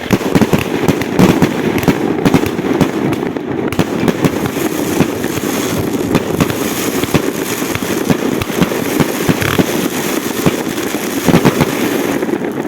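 Fireworks going off: a dense, continuous crackling of many overlapping bursts and pops, with no break.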